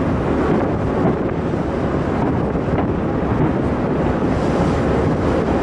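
Many aerial firework shells exploding in quick succession, blurring into a steady, dense din with no single bang standing out.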